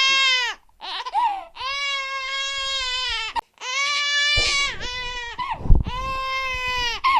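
A baby crying hard: a run of long, steady wails separated by brief gaps for breath. There is a low bump about six seconds in.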